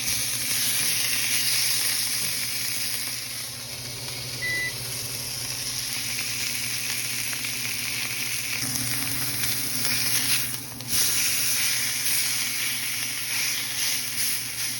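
Ribeye steak searing in a very hot cast iron skillet, a steady loud sizzle of fat and juices spitting on the metal. The sizzle dips briefly about ten seconds in and comes back at full strength.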